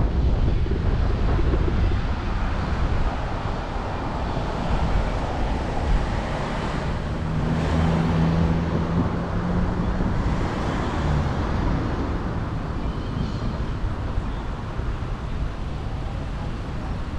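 Car driving on a city street, with road and traffic rumble and wind buffeting the microphone. The wind noise eases as the car slows to a stop in traffic, and a steady hum comes in briefly about halfway through.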